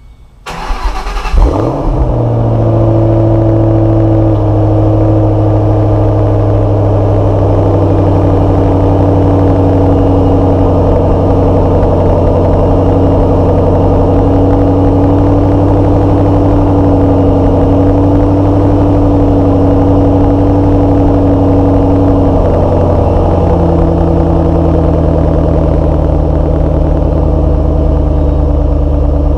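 Ford Mustang GT V8 cold start heard at the exhaust tip through Bullitt mufflers: the starter cranks briefly, the engine catches with a rev flare about a second and a half in, then settles into a steady fast cold idle that steps down slightly in pitch near the end.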